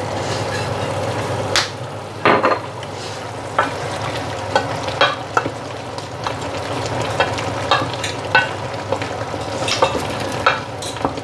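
Steady sizzle of food cooking on the stove, with a utensil stirring and giving irregular sharp taps and clinks against the cookware.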